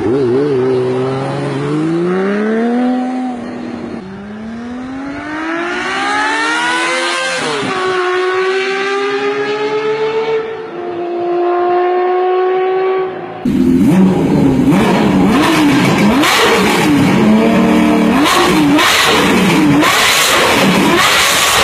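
Honda CBX 1050's air-cooled inline-six engine revving and pulling hard. Its pitch climbs in long rises with sudden drops over the first dozen seconds. From about 13 seconds in it is louder and rougher, with the revs rising and falling quickly.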